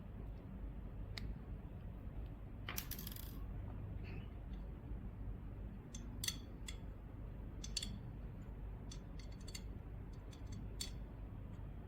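Small sharp clicks and ticks of tools and parts being handled as a device is taken apart, with a short scrape about three seconds in and clusters of clicks later on, over a low steady hum.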